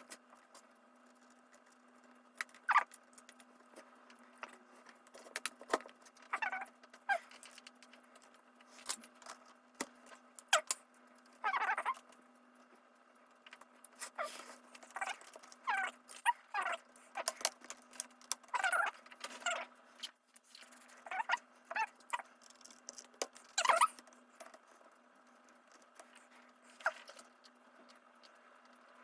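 ThinkPad T520 laptop being taken apart by hand: irregular plastic clicks and taps with short squeaky scrapes as parts are pried and handled, over a faint steady hum.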